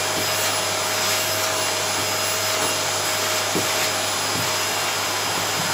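Vacuum cleaner running steadily while hoovering carpet: a constant rushing noise with a steady whine in it.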